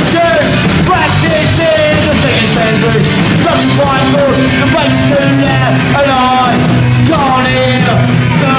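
Live punk rock band playing an instrumental break with electric guitar, bass and drums. A lead line of sliding, bending notes runs over the steady beat.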